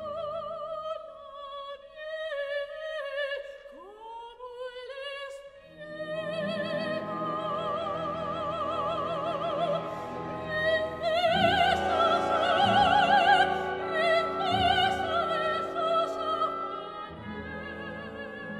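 Operatic female solo voice singing with wide vibrato over a symphony orchestra, sliding between notes in the first few seconds. The orchestra comes in fully about six seconds in and swells to a louder passage near the middle.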